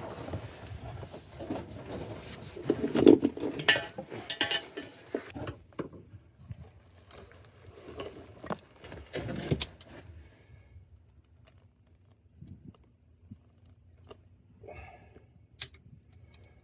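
Metal hand tools clinking and rattling in irregular bursts, busiest in the first six seconds and again around nine seconds, then a few scattered sharp clicks.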